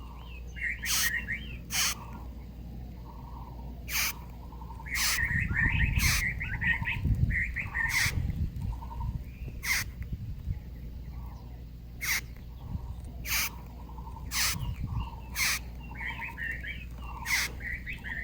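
Bess beetle (Passalidae) stridulating: short rasping squeaks repeated irregularly, about one every second or two, mixed with softer chirps.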